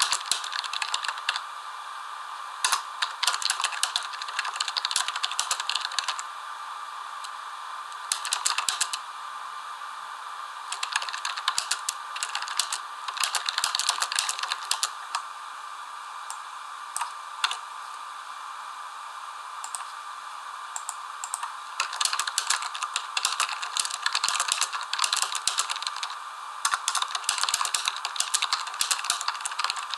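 Rapid light clicking and rattling in bursts of a few seconds each, with short pauses between, over a steady faint hum.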